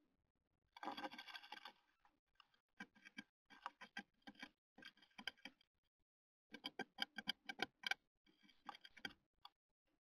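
Great tit inside a wooden nest box, pecking and scrabbling at the wood while cleaning out the box before nesting. A dense scratchy scrabble comes about a second in, followed by quick clusters of sharp taps and clicks.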